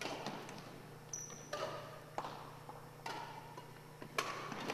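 Badminton rackets striking the shuttlecock in a rally: about half a dozen sharp pops, roughly one a second, with a few short squeaks of sneakers on the hardwood gym floor.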